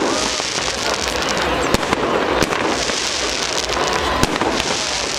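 Fireworks display: a dense, continuous crackle and popping of bursting shells, with sharper bangs every second or so.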